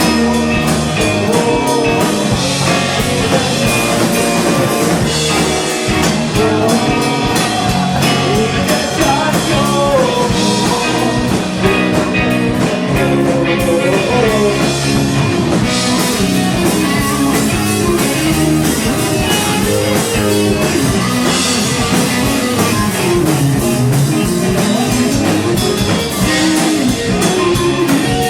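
Live rock band playing loud and steady: guitar and drum kit, with guitar lines bending up and down in pitch.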